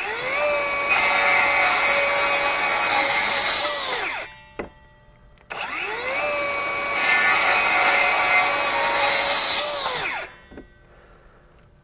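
FLEX FX2141R 24-volt brushless rear-handle circular saw with a 7-1/4-inch blade making two straight cuts through pressure-treated 2x lumber. Each time, the motor whines up to speed, grows louder and harsher for about three seconds as the blade bites through the wood, then drops in pitch and stops within about half a second under its electronic brake. A small click follows each cut.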